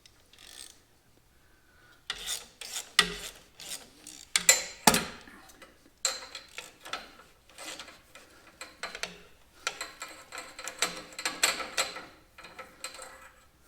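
Hand work on metal parts: a busy run of clinks, scrapes and rubbing, with a few sharper knocks, starting about two seconds in and dying away near the end.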